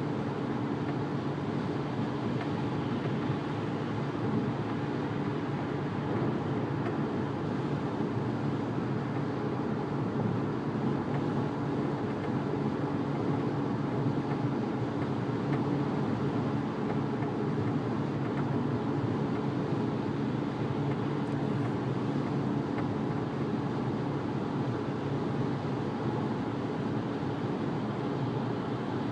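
A 2010 Volkswagen Jetta TDI's 2.0-litre four-cylinder turbodiesel and its road noise while driving, a steady hum without a clear knock standing out.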